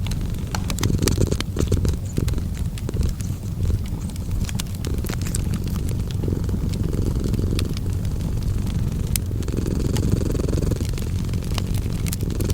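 A cat purring in a steady low rumble that swells with each breath every couple of seconds, over a wood fire crackling with frequent sharp pops.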